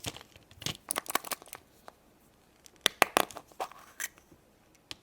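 Hands tearing open and crinkling the wrapper of a surprise egg's toy, in bursts of crackly clicks, with a few sharper snaps about three seconds in.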